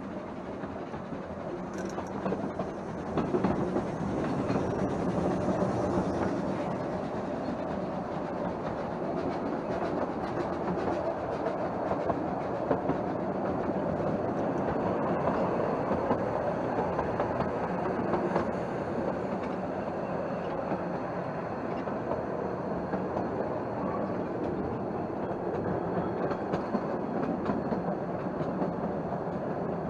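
Narrow-gauge railway carriage running along the track, heard from an open window: steady wheel and rail noise with the clickety-clack of the wheels over rail joints, growing louder a few seconds in.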